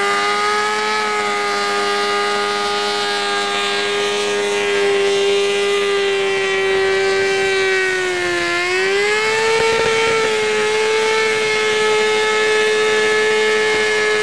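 Motorcycle engine held at high, steady revs during a stationary burnout, the rear tyre spinning on asphalt. The revs sag briefly about eight seconds in, then climb back and hold.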